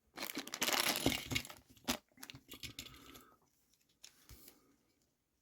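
Small plastic packaging crinkling and tearing open for about a second and a half, then a sharp click and lighter rustling and ticks of small plastic parts being handled.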